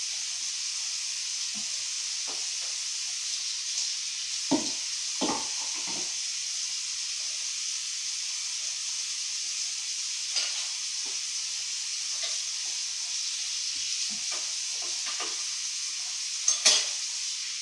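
Slime being worked by hand: scattered soft sticky clicks and squelches, a few stronger ones about four to six seconds in and near the end, over a steady high hiss.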